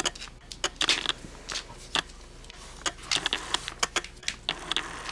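Irregular light clicks and taps in quick succession, bunching into faster runs in the second half.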